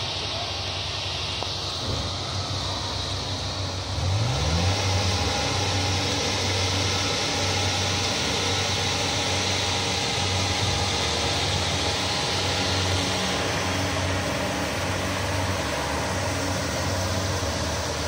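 Kubota DC-70 rice combine harvester's diesel engine running. It revs up about four seconds in, then runs steadily louder at the higher speed with a hiss from the machinery.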